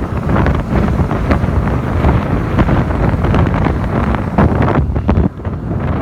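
Wind buffeting the microphone of a phone carried on a moving motorcycle: a loud, gusty low rush of air that dips briefly about five seconds in.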